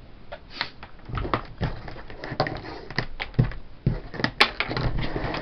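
Silicone test leads and a plastic hook-style mini grabber clip being handled on a desk: a scattered run of small clicks, taps and rubbing, with one sharper click a little past four seconds in.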